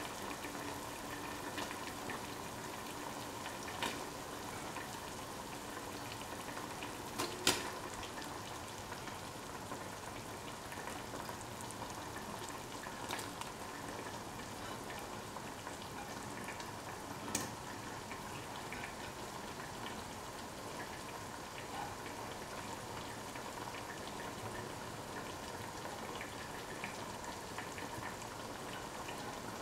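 Tamarind and tomato curry gravy bubbling at the boil in a steel pot: a steady bubbling hiss, with a few sharp clicks standing out about four, seven and a half and seventeen seconds in.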